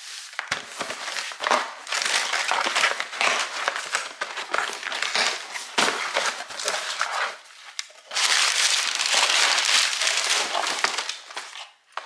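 Plastic packaging being handled and crumpled, with a dense crinkling crackle, as a package is opened and unwrapped. The crinkling is loudest from about eight to eleven seconds in.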